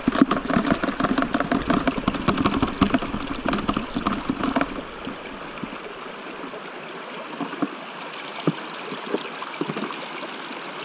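Water and gravel sloshing and scraping in a bucket as a hand scoop works the material loose, for about five seconds. Then only the steady rush of the stream remains, with a few light knocks.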